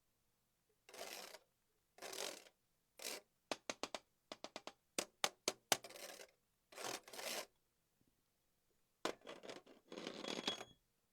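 A string of short scraping and rubbing noises and sharp taps right on or against the microphone, dropping to dead silence between each one.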